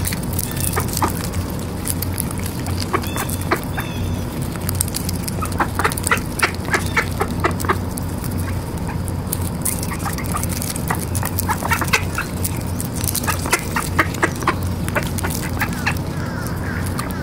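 Mallard ducks feeding on popcorn in grass: many quick clicks and snaps of their bills, coming in irregular runs, over a steady low hum.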